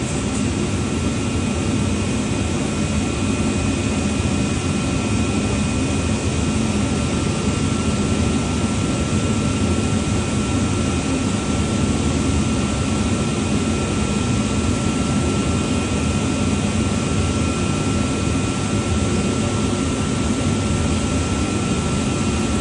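CNC router running steadily while cutting V-grooves: a continuous loud rushing noise with a steady high spindle whine over it.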